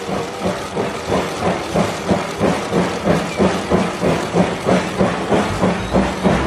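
Steam locomotive chugging in a steady rhythm of hissing chuffs, about four a second.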